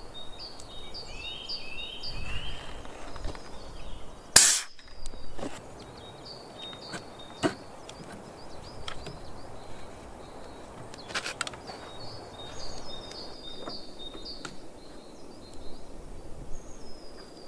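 A single sharp shot from a moderated .22 Daystate Huntsman Revere PCP air rifle about four seconds in, with a few fainter clicks later. Small birds chirp in short repeated notes throughout.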